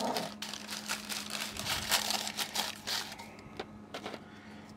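Crumbled Oreo cookie pieces being spread by hand over baking paper in a cast iron skillet: irregular rustling of the paper and light clicks of the cookie bits, thinning out after about three seconds.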